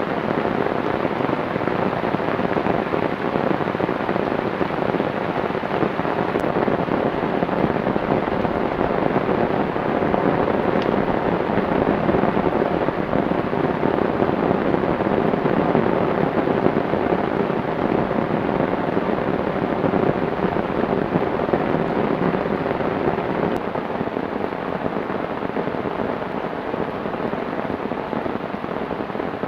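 Heavy rain pouring down steadily and loudly.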